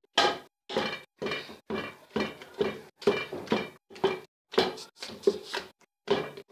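A ghotna masher knocking into boiled carrots and rice in a pressure-cooker pot, about two strokes a second, mashing them smooth for gajrela.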